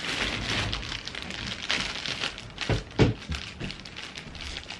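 Thin plastic mailer bag rustling and crinkling as it is handled and pulled open, with a dull thump about three seconds in.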